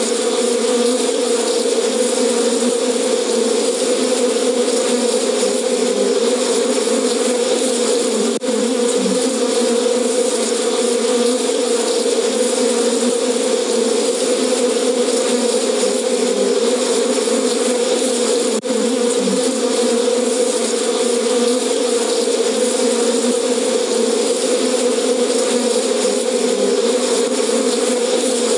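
Recorded sound of angry bees played back as an elephant deterrent: a loud, steady swarm buzz, with two very brief breaks about eight and eighteen seconds in.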